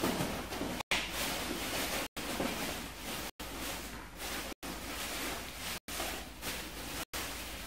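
Colored pencil shading on paper, a steady scratchy rasp of strokes. Cut by six brief drop-outs to silence, about one every second and a quarter.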